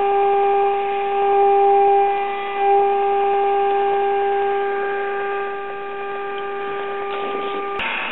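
Steady audio tone from a signal generator's modulated test signal, played through the Silvertone tube radio's loudspeaker: the radio's IF stages are now peaked at 455 kilocycles. The tone holds steady and cuts off abruptly just before the end.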